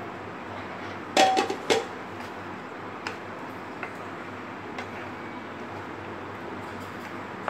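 Spoon knocking against the rim and sides of a steel pan while fruit is stirred into thick custard: a quick cluster of clinks about a second in, one with a short metallic ring from the pan, then a few light taps over a steady low hiss.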